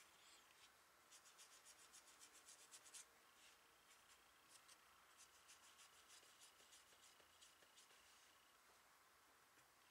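Faint rubbing of a watercolor brush working paint, a run of quick short strokes, several a second, about a second in, and another run from about four seconds in.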